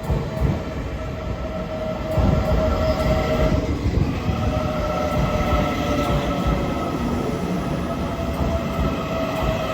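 Taiwan Railway EMU800 electric multiple unit pulling into a station: a low rumble from the moving train with a steady, several-toned high whine running over it.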